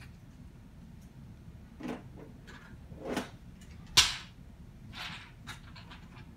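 Toys being handled: toy trucks and blocks knocking and clattering in a string of separate knocks, with the sharpest, loudest knock about four seconds in.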